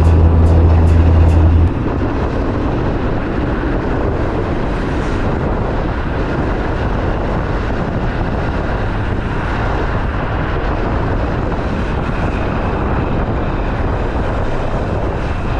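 Articulated city tram running past close by: a steady rolling noise with no pitched tones. Louder background music cuts off about a second and a half in.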